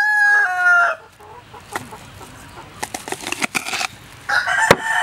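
A rooster crowing: one crow holds and then falls away, ending about a second in, and another begins near the end. A few light clicks and knocks sound in between.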